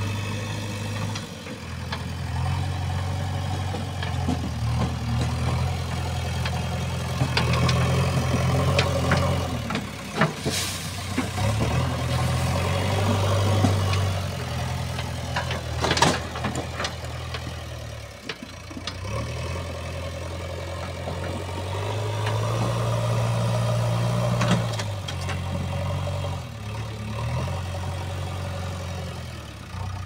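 JCB 3DX backhoe loader's diesel engine running, rising and falling as the load comes on and off while the front bucket digs into and lifts earth. Two sharp clanks come about ten and sixteen seconds in.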